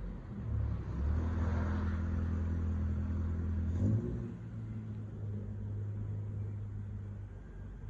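Car engine running at low revs through an exhaust made louder by a cheap homemade modification: a steady low drone that eases off a little about four seconds in.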